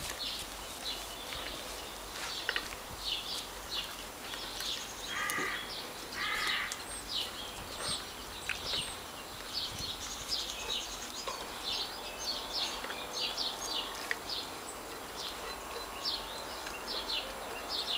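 Short, high animal calls chirping over and over, with two harsh cawing calls about five and six and a half seconds in.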